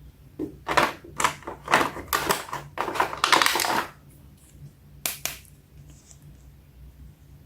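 Crinkly plastic packaging being handled and crackling in a rapid run of short bursts, then two quick crackles about five seconds in.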